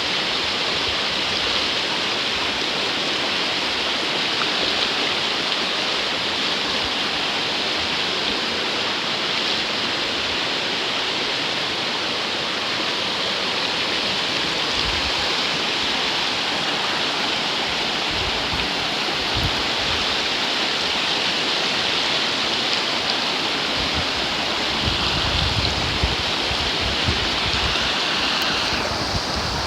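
River water rushing through a canyon: a steady, even rush of water. A few low rumbles come in near the end.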